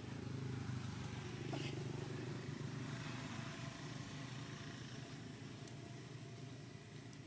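Low steady hum of a motor vehicle's engine, swelling in the first second and slowly fading as it passes. A brief faint chirp sounds about a second and a half in.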